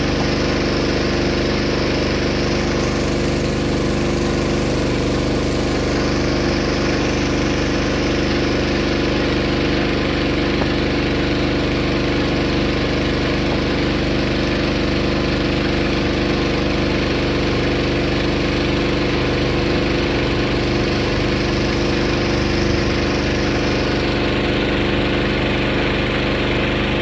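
Steady hum of an engine running at an even idle, unchanging throughout.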